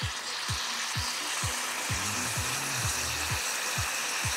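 Steady sizzling hiss from a self-heating potato hot pot after water has been added, its heating pack reacting. Background music with a kick drum beating about twice a second plays under it.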